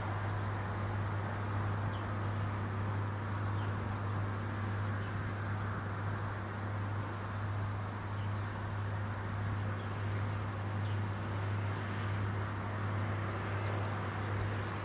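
Harvesting machine engine, most likely a rice combine harvester, running with a steady low drone. A few faint short chirps sound above it.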